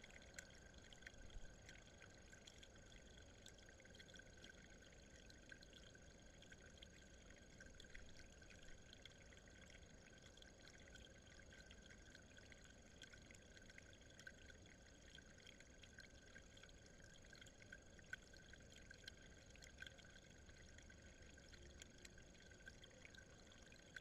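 Near silence: a faint steady hiss with a thin high whine under it, and a few faint scattered ticks.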